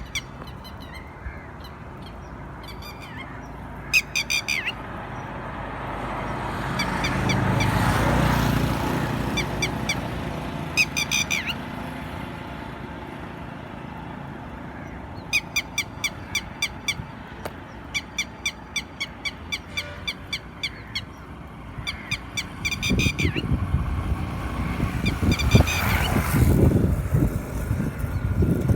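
Geese honking in runs of short, quickly repeated calls, several times over. A rush of noise swells and fades around the middle and again near the end.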